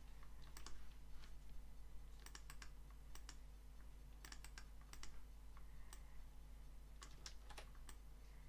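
Faint, irregular clicks of a computer mouse and keyboard, some in quick pairs, over a steady low electrical hum.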